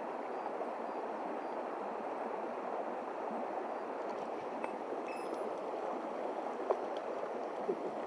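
Shallow mountain stream running over stones, a steady rushing burble, with a couple of faint ticks around the middle.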